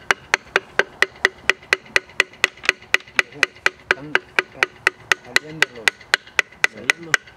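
Steel hammer striking the end of a wooden board braced against a seized piston in a Rambler 195.6 OHV inline-six engine block, in quick, even blows about four a second, with a short ring after each, to drive the piston out of its bore.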